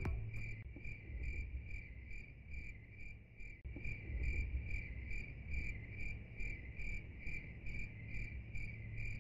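Cricket chirping steadily and evenly, about two and a half short high chirps a second, over a faint low hum.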